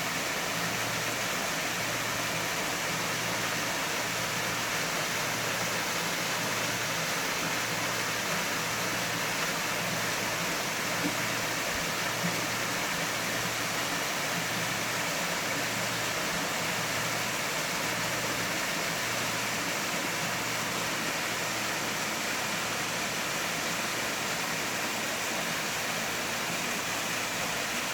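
Artificial waterfall: water falling in a steady, even rush, with a low hum underneath that pulses about once a second.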